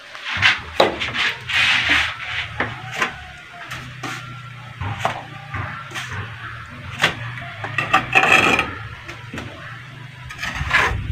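Building-work noise: scattered sharp knocks and clatter of wood being handled, with a brief scraping sound about eight seconds in, over a low steady hum.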